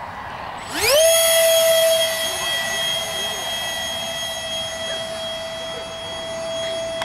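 Radio-controlled model jet's 70 mm five-blade electric ducted fan spooling up to full throttle about a second in, its pitch rising quickly and then holding as a steady high whine with overtones. The whine slowly fades.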